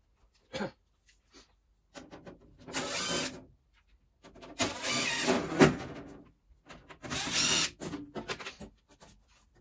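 A DeWalt cordless driver runs in four short bursts, the longest nearly two seconds, as it backs out the screws holding the carbon door panel.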